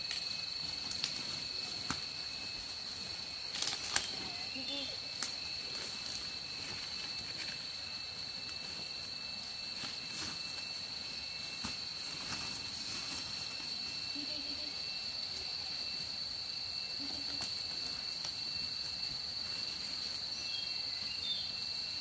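A steady, high-pitched insect chorus drones without a break. A few sharp clicks and knocks sound over it, the loudest about four seconds in.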